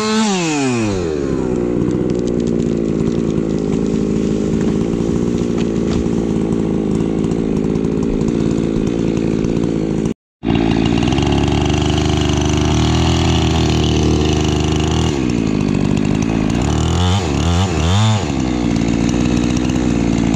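Husqvarna two-stroke chainsaw at full throttle dropping to idle about a second in, then idling steadily. The sound breaks off briefly halfway through, and near the end the saw is blipped with a few quick revs before settling back to idle.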